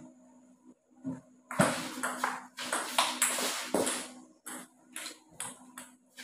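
Table tennis rally: the ball clicking sharply off the paddles and the table, a run of about ten hits from about a second in until just before the end, over a steady low hum.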